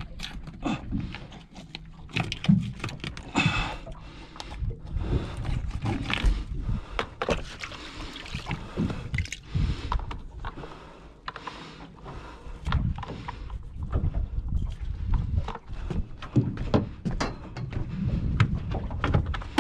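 Irregular knocks and clatter aboard a small fishing boat, over a steady low rumble.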